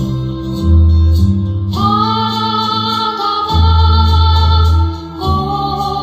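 Music from a Korean ballad: accompaniment with a steady bass line, and a melody of long held notes that comes in about two seconds in and shifts pitch near the end.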